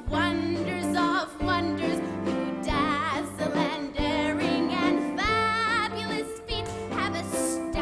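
A show tune: a singer holding and gliding between notes with wide vibrato over a steady band accompaniment.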